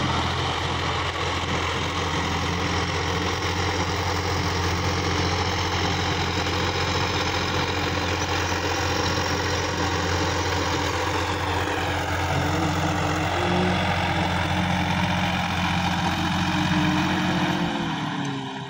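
Sonalika DI-50 RX tractor's diesel engine running steadily while it pulls a rotary tiller through dry soil. Its note shifts slightly about two-thirds of the way in.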